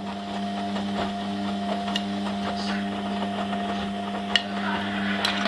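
Steady mechanical hum made of several constant tones, with a few sharp clicks about two, four and a half and five seconds in.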